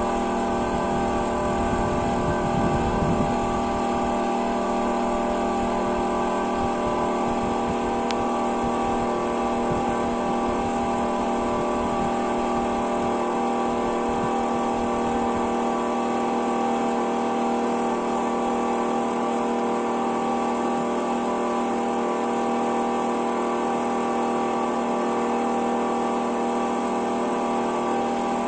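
Engine running steadily at constant speed, an even, unchanging mechanical hum.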